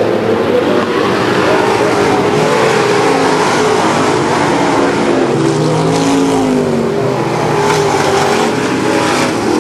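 Dirt-track super stock race cars running hard around the oval, several engines at once, their pitch rising and falling as the cars come through the turns and pass.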